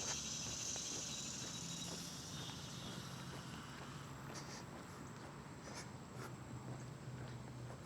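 Faint outdoor ambience: insects chirring in a high, even hiss that fades away over the first few seconds, over a low steady hum. A few faint ticks come in the second half.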